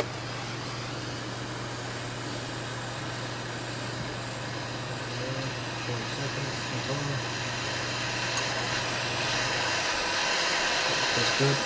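Soldering torch flame hissing steadily, growing a little louder in the later seconds, over a low steady hum that stops near the end.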